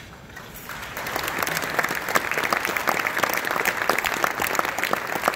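Audience applauding: many hands clapping, starting suddenly about a second in and continuing steadily.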